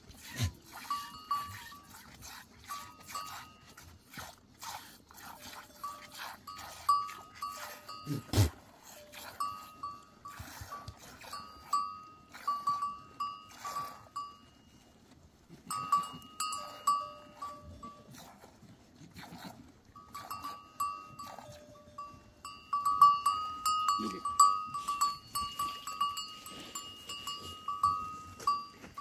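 Bells on a goat herd clinking and ringing over and over as the animals jostle, busiest and loudest near the end, with one heavy thump about a third of the way in.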